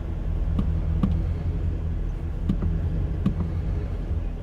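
A vehicle engine idling with a steady low hum as the RV rig eases forward onto leveling blocks, with a few short clicks and knocks.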